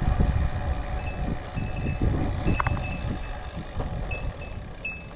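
Wind rumbling unevenly on the microphone of a moving bicycle, fading toward the end, with a faint high beep coming and going.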